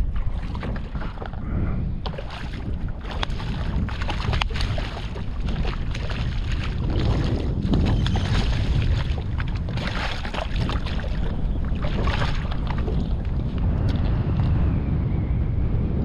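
Strong wind buffeting the microphone, with a hooked fish splashing and thrashing at the surface beside a flats skiff as it is pulled in on the line. The splashing is busiest in the middle of the stretch.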